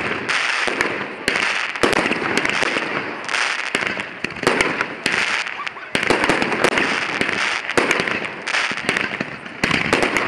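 Aerial fireworks going off in quick succession: a steady run of sharp bangs from bursting shells, with dense crackling between them.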